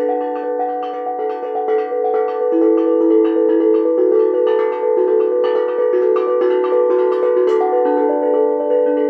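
Tuned steel drum played with small felt mallets: a quick, continuous run of clear, bright notes, several a second, each ringing on into the next.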